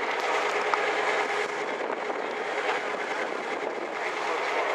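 Sightseeing boat's engine running steadily, with a low hum under an even rush of water and wind noise.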